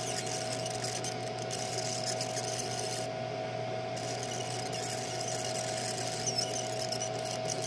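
Laser engraver running while it marks a metal belt clip: a steady machine hum with a high, steady whine and a hiss. The hiss drops out for about a second about three seconds in.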